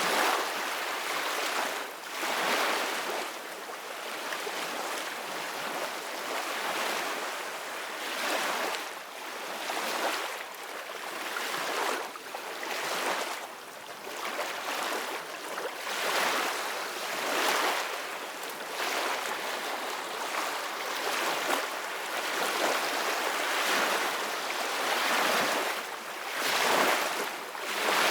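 Ocean waves washing and splashing in irregular surges every second or two, with wind noise.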